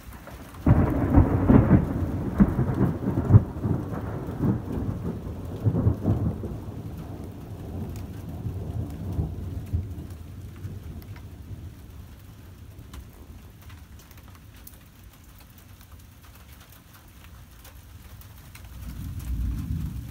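A thunderclap breaks in sharply about a second in, crackles for several seconds, then rumbles and fades away over about ten seconds while rain falls steadily. A second, softer low rumble of thunder swells near the end.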